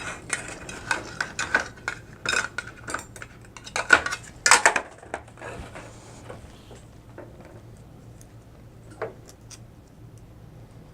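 Small metal tools and lock parts clinking and tapping against each other as a picked wafer lock is taken apart with a follower and tweezers: a busy run of clinks over the first five seconds or so, then only a few scattered ticks.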